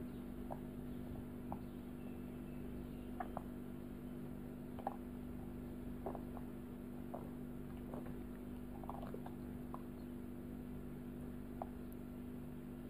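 Faint, scattered little clicks and smacks of a drowsy baby's mouth working slowly on a snack, over a steady low hum.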